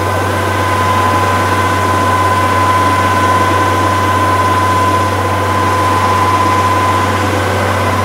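Rice combine harvester running steadily at close range, a low engine hum under a constant high whine from its threshing and unloading machinery.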